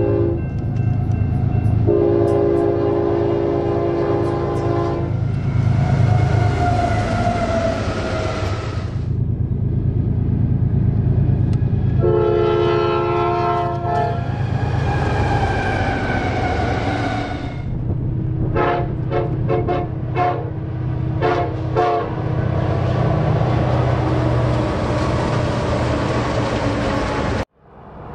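A diesel locomotive's air horn sounds two long chords over the steady low rumble of the passing train, then a quick string of short toots. Between the blasts, fainter tones slide lower in pitch. The sound cuts off abruptly near the end.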